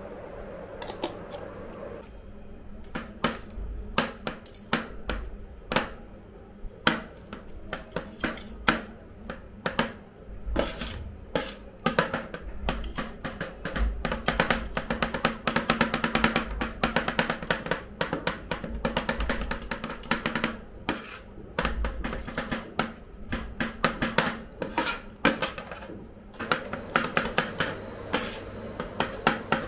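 Metal spatulas chopping and tapping banana on a frozen steel ice cream roll plate: quick, irregular clacks that start about two seconds in and grow dense, over a steady hum.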